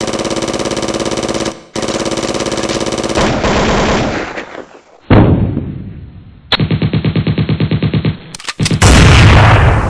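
Spliced war sound effects: long bursts of rapid machine-gun fire, then a single loud blast about five seconds in that fades away, another machine-gun burst of about ten shots a second, and a loud sustained blast near the end.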